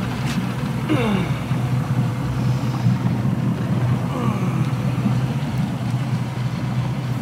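Boat's outboard motor running steadily, a constant low hum, with water washing along the hull.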